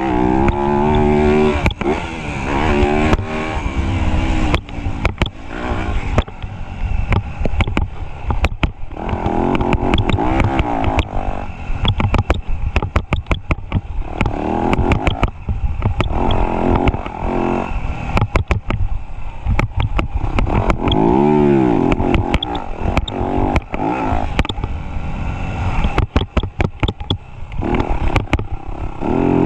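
Motocross bike engine revving up and down over and over as the bike is ridden around the track, with frequent sharp knocks and clatter.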